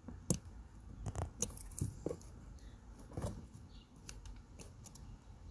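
Small plastic electrical connector being handled and pulled apart by hand after its locking tab is pressed down: scattered light clicks and rattles, the sharpest about a third of a second in.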